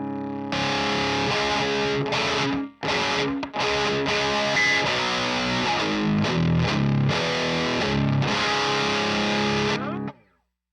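Heavily distorted electric guitar, a Chapman ML1 Modern with DiMarzio D-Activator pickups, played through a Diezel VH4 preamp pedal, boosted by an Abominable Electronics Hellmouth, into the EL34 power section of a Rivera Knucklehead Reverb amp. A held chord rings out, then heavy riffing with two brief stops, cut off abruptly near the end. The player judges the tone close to the target but a little bright from the pickup.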